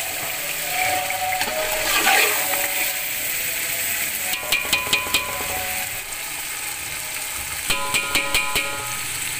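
Meat and masala sizzling as they fry in oil in a metal pot, with a metal spoon stirring and scraping through them. Twice, about four and eight seconds in, a quick run of clicks with a metallic ring as the spoon knocks against the pot.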